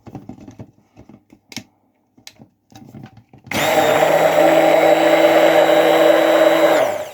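Hand-held immersion blender switched on about three and a half seconds in, running steadily as it whips hot milk with butter and honey, and switched off just before the end. Before it starts, a few light clicks and knocks of handling.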